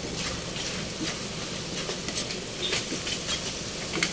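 Pork and diced tomatoes frying in a pan, a steady sizzle with scattered pops.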